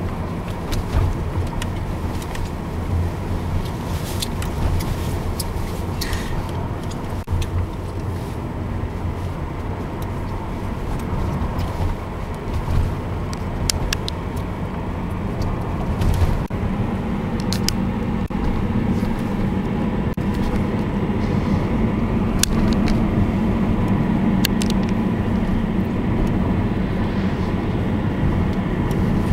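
Car cabin noise on the move: a steady low engine and road rumble, the engine hum getting stronger about halfway through, with a few light clicks.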